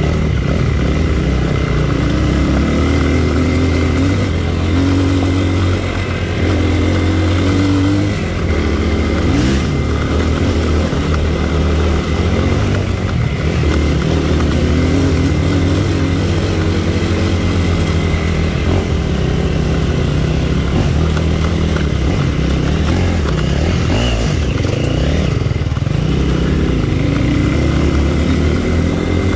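Dirt bike engine running hard under throttle, its pitch rising and falling as it revs up and eases off through the ride.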